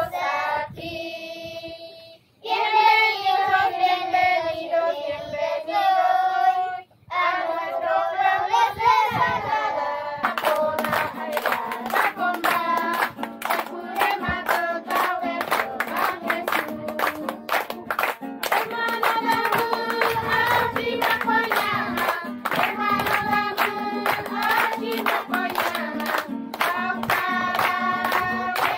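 A group of children singing a welcome song together in phrases. About ten seconds in, steady rhythmic hand clapping joins the singing and keeps time to the end.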